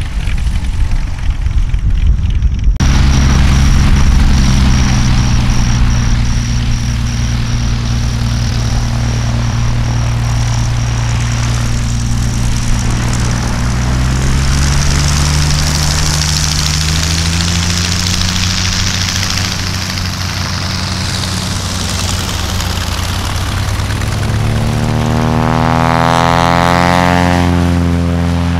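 Single-engine piston light airplanes running on a grass airstrip, their engine and propeller droning steadily. The engine note climbs in pitch through the middle and swells loudest as a plane passes close near the end.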